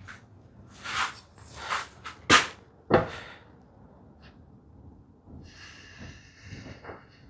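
Layout tools handled on a wooden board during hinge marking: two quick swishing strokes, two sharp clicks, then a longer scratchy, faintly squeaky stroke, like a pencil being drawn along the wood.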